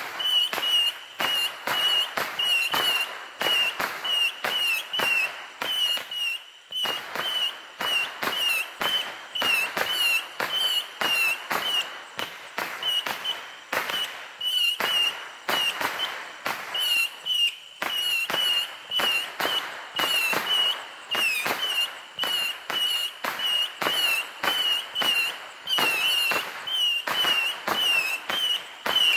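A Raccoon Fireworks 'A Million Missiles' 300-shot Saturn missile battery firing a rapid, continuous string of missiles. Each shot gives a sharp crack, about two or three a second, over a steady high whistle from the missiles in flight.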